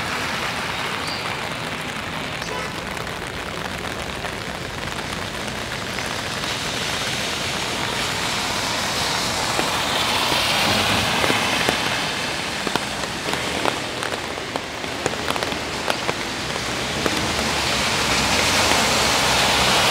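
Steady rain falling on a wet city street, a continuous hiss. The hiss swells about halfway through and again near the end as cars pass on the wet road, and a few sharp drip ticks land in between.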